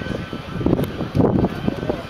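Four turbofan engines of a C-17 Globemaster III running as it rolls along the runway: an uneven rumble that swells and dips, with a faint steady whine above it.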